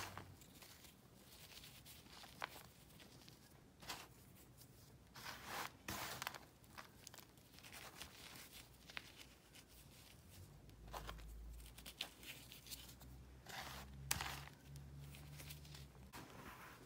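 Faint crunching and crumbling of a hand squeezing and raking through a pile of dry, chalky powder and broken chunks, coming in irregular short bursts, with one sharp crack about 14 seconds in.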